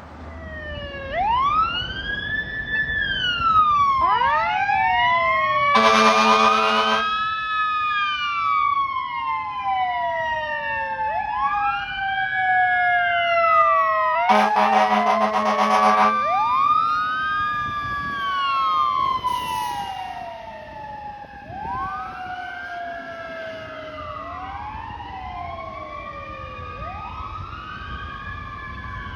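Fire truck sirens wailing, several overlapping and rising and falling in pitch, with two air horn blasts, a short one about six seconds in and a longer one about fourteen seconds in.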